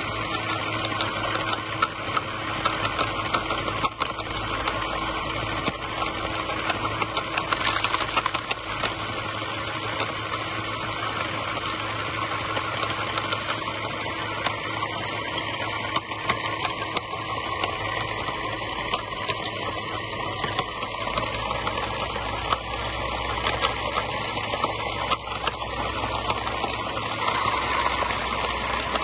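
The small electric hydraulic pump of a scale model CAT 950M wheel loader whirs steadily, with many sharp clicks and gravel rattling as the bucket tips its stones into a model screening plant.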